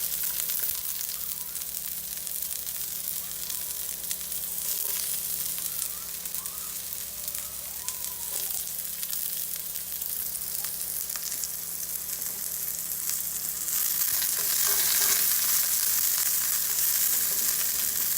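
Chopped garlic and onions sizzling and crackling in hot vegetable oil in a frying pan, a steady hiss that gets a little louder in the last few seconds.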